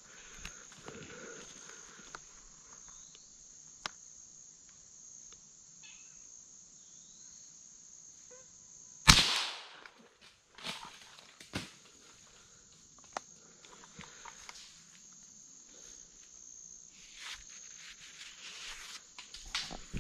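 A single gunshot from a scoped squirrel gun fired up into the treetops about nine seconds in, sharp and much the loudest sound, with a short tail, over a steady high-pitched insect drone. A few lighter knocks follow, and footsteps rustle through leaf litter near the end.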